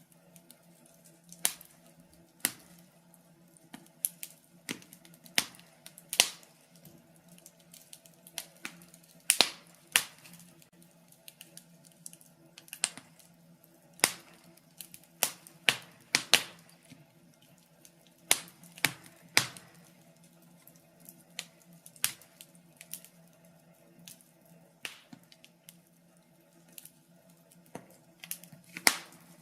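Wood fire crackling in a fireplace: irregular sharp pops and snaps, a few every couple of seconds, over a faint steady hum.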